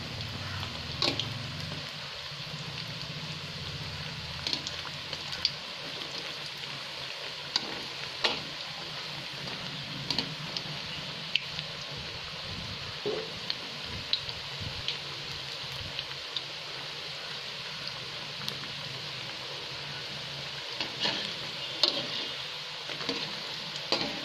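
Moringa-leaf bondas deep-frying in hot oil: a steady sizzle with scattered sharp crackles and clicks.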